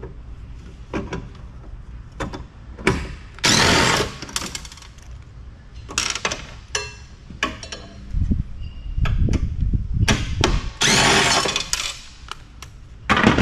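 DeWalt cordless driver fitted with a 12-inch extension bit, run in short bursts to back fasteners out of a copper bus bar inside a telecom power box. The two loudest runs come about a third of the way in and again near the end, with metal clicks and clinks in between.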